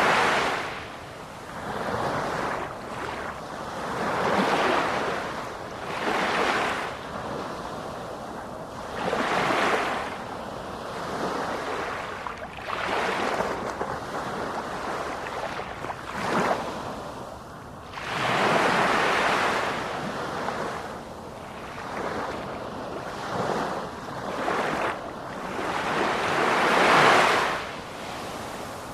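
Sea waves breaking on the shore, one surge of surf after another, each swelling and fading over two to four seconds, with the biggest surges near the middle and toward the end.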